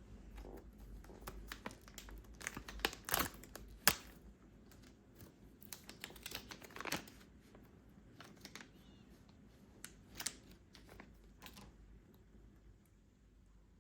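Crinkling and rustling of something being handled, with scattered light clicks and taps, busiest in the first half and dying away near the end.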